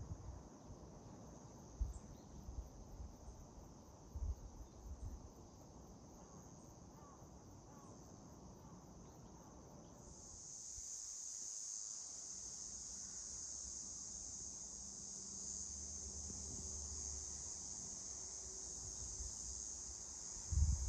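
Steady high-pitched insect chorus, growing louder about halfway through, with a few low thumps in the first five seconds.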